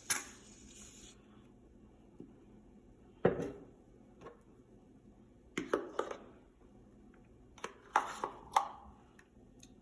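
Scattered light knocks and scrapes of a utensil and measuring cup against a mixing bowl as shaving cream is scooped in, in small clusters with quiet gaps between.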